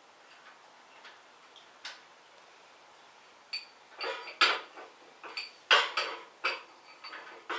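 Metal parts clinking and knocking as a small bracket is worked into place on a motorcycle. It is quiet at first, then about three and a half seconds in comes a run of irregular sharp clicks and clanks, two of them louder than the rest.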